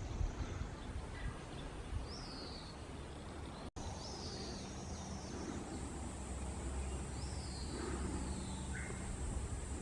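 Birds calling outdoors: a few short whistles, each falling in pitch, over a low rumbling background that comes and goes, with a steady faint high hiss.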